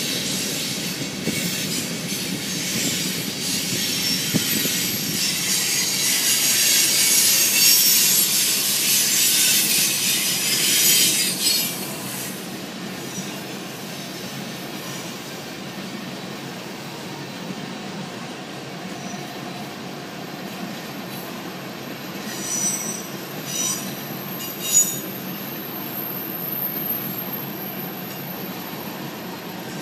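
Freight train of tank cars and open hopper cars rolling past on the rails. The wheel noise is loud and high-pitched for the first dozen seconds, then eases to a steadier, lower rolling noise, with a few sharp clanks about three quarters of the way through.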